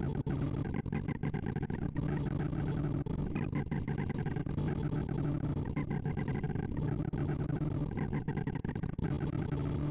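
Synthesized sorting-visualizer tones: a dense, steady stream of rapid short beeps, one for each array access, whose pitch follows the values being sorted, blurring into a buzzing drone.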